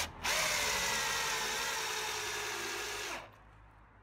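Power drill driving a long screw into a timber beam: the motor runs steadily, its pitch sinking slowly as the screw bites deeper and loads it, then stops about three seconds in as the screw seats.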